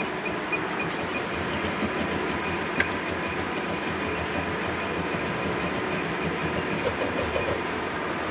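Juki AMS-210EN programmable pattern sewing machine running a pattern check: its feed motors drive the clamp around the stitch pattern without sewing. It makes a steady mechanical whir with short high ticks, about four a second, that stop near the end.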